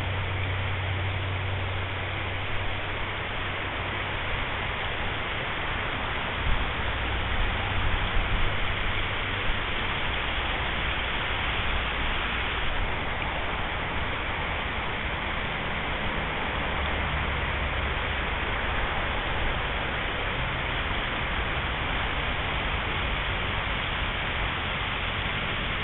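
Steady rushing of a shallow river running over a riffle.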